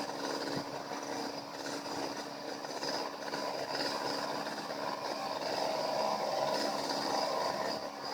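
A machine engine running steadily with a constant hum, swelling a little past the middle.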